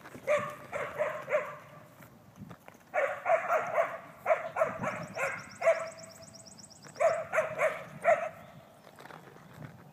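A dog barking in repeated bursts of three to five barks, with pauses of a second or two between bursts. A fast, high trill runs through the middle.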